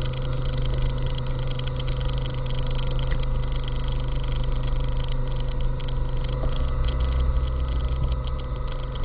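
A vehicle engine running steadily at idle, a constant low hum with no change in pitch.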